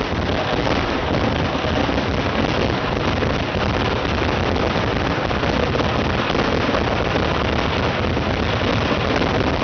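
Fireworks going off in a dense, unbroken barrage, the bangs so close together that they merge into one steady, loud din.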